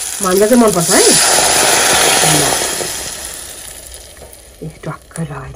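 Hot oil in a pan on a gas stove sizzling loudly as food goes in, the hiss swelling about a second in and then slowly dying down. A few clicks follow near the end.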